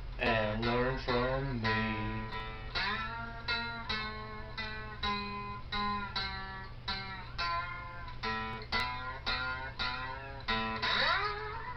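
Guitar picking single notes, about two or three a second, with a few bent notes near the start and near the end, over a steady low hum.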